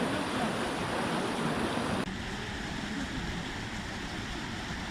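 Rushing mountain stream water, a steady noise that turns abruptly duller about two seconds in.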